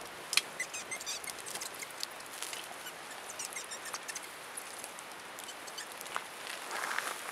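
Wood campfire crackling: irregular sharp pops and snaps over a soft hiss.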